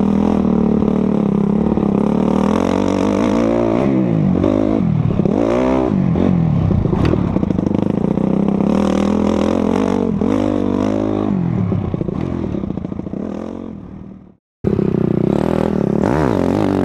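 Honda CRF motocross bike's four-stroke engine revving up and falling back again and again as it is ridden around the track. The sound fades away about twelve seconds in, cuts out briefly, then the engine is heard again at full level.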